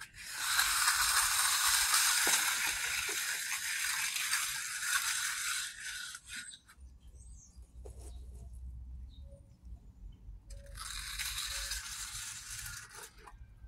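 Hand trowel scraping across the surface of freshly poured wet concrete, a steady gritty hiss lasting about six seconds, then again for about three seconds near the end.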